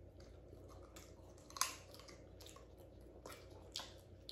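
Quiet eating sounds: chewing and lip smacks, with scattered small clicks and squishes as steamed lobster is picked apart by hand. The loudest click comes about one and a half seconds in, another near the end.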